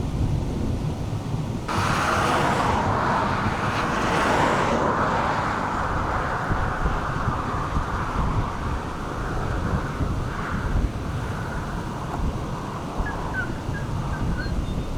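Wind buffeting the microphone with a constant low rumble, and a rushing hiss that comes in suddenly about two seconds in, is strongest for a few seconds, then settles to a steadier rush. A few faint chirps near the end.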